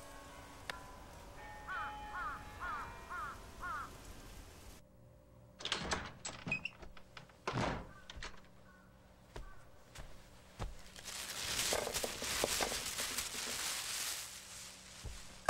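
Foley sound effects: a faint short chirp repeated about four times, then from about five seconds in a few hollow thunks, the loudest three within two seconds. Near the end comes a rustling clatter lasting a couple of seconds.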